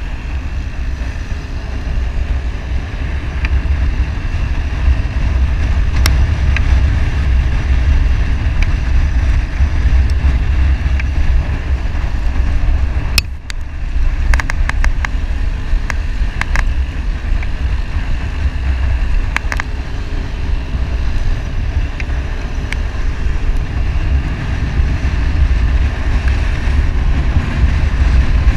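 Wind buffeting the microphone over the steady rumble of a motorcycle being ridden along a winding road. A few sharp clicks come around the middle.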